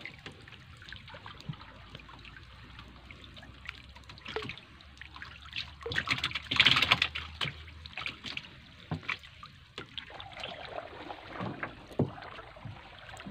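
Water splashing and dripping as a fishing net is hauled by hand out of the water, with scattered small clicks and knocks throughout and a louder splash about seven seconds in.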